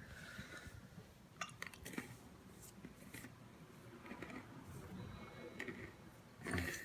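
Faint handling sounds of chocolate-covered pretzels: scattered small clicks and rustles, with a louder short thump near the end.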